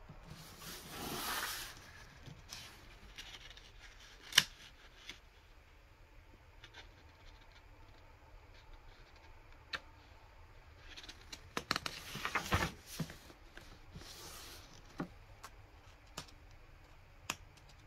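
Paper rustling as an instruction booklet is handled and its pages turned: a soft swish about a second in, a sharp tap about four seconds in, and a longer cluster of page rustles and clicks about two-thirds of the way through. It is faint overall.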